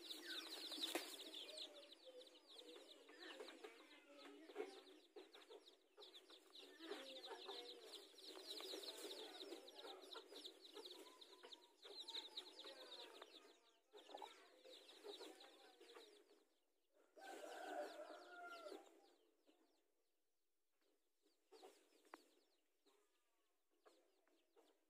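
Faint sounds of a brood of chicks: many rapid, high, falling peeps mixed with a hen's low clucking. A louder hen call comes about 17 seconds in, after which it dies away to near silence with only a few scattered peeps.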